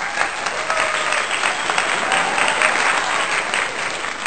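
A crowd applauding: dense, steady clapping with a few voices mixed in, a stock applause effect laid under an animated logo intro.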